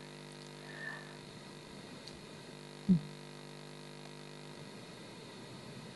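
Steady electrical mains hum on the microphone line, with a brief short low sound about three seconds in.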